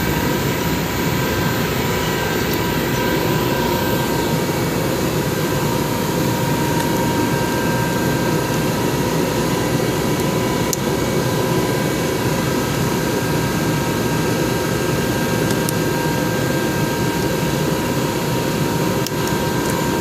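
Steady machine-room drone: running machinery making an even, loud rumble with a thin steady whine in it.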